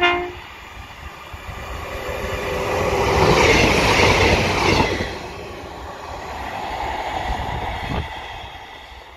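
A short horn note right at the start, then a Class 175 diesel multiple unit passes close by: engine and wheel noise swell to a peak about three to five seconds in and fade as it runs away, with a single knock near the end.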